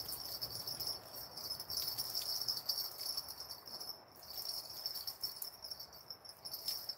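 Night insects chirring steadily in a high, even drone.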